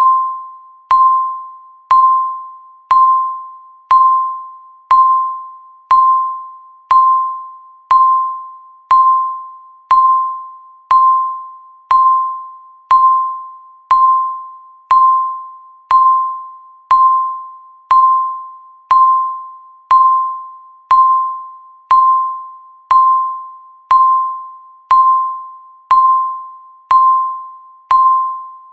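Electronic countdown-timer beep sounding once every second: a single short tone that starts sharply and fades away before the next one.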